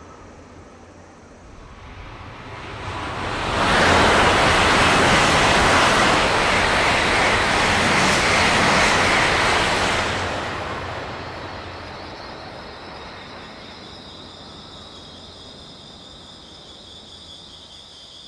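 E2-series Shinkansen passing at high speed on an elevated track: a rushing noise that swells over two seconds, holds loud for about six seconds as the train goes by, then fades away slowly. Insects chirr steadily as it dies down.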